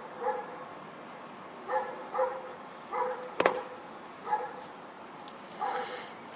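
A small dog barking in short, high yips, about six of them at irregular intervals. There is one sharp click a little past the middle.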